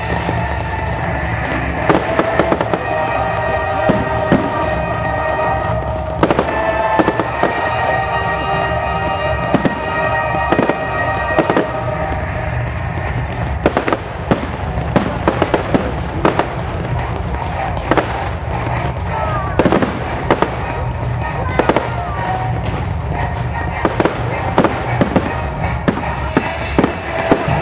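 Fireworks display: many sharp bangs and cracks of bursting shells, coming thicker in the second half, over music with held notes that are most prominent in the first half.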